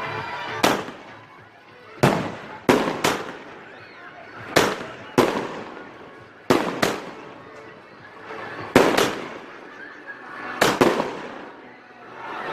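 A Volcano 360 firework going off: about a dozen sharp bangs in irregular succession, several in quick pairs, each trailing off in a fading crackle.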